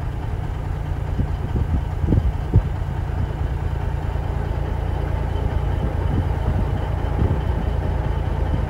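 Strong Kansas wind buffeting the microphone: a steady, heavy low rumble with a few faint knocks.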